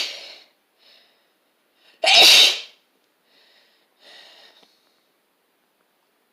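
A person sneezing in a fit of repeated sneezes: the tail of one sneeze right at the start, then a second loud sneeze about two seconds in, followed by a few fainter sounds.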